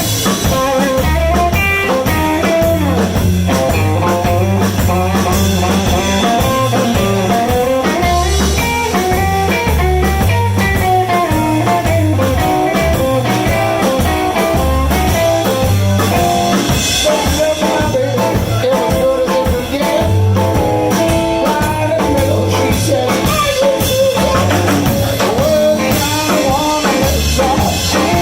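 Blues band playing live: guitar over bass and drum kit.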